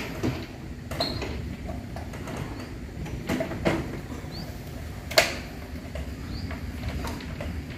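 Line-array speaker cabinets and their metal rigging frames knocking and clanking as they are lifted off a stack: a handful of separate clunks, the loudest about five seconds in, over a low steady rumble.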